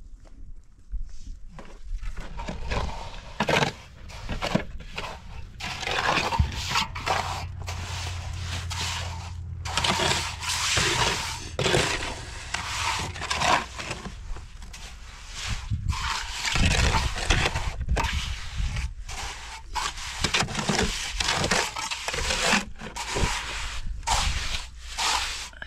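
Wet cement mortar being worked: a shovel scrapes mortar out of a metal wheelbarrow and a trowel scrapes and spreads it over rough stones, in repeated irregular scrapes.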